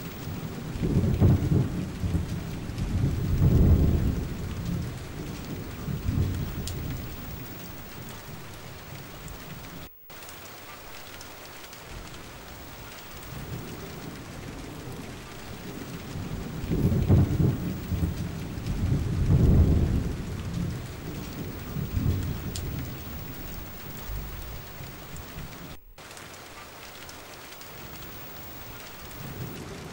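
Steady rain with two long rolls of thunder, the first starting about a second in and the second just past halfway.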